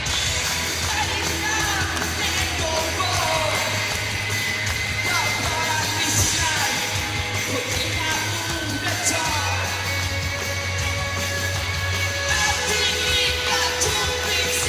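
Rock band playing live through a concert PA, with sung lead vocals over electric guitars and a steady bass line, heard from within the audience.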